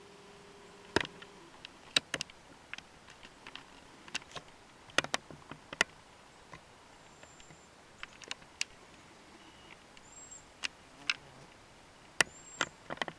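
A camcorder's zoom motor whines faintly for about the first second and a half. After that come scattered sharp, irregular clicks and ticks, with no gunshot.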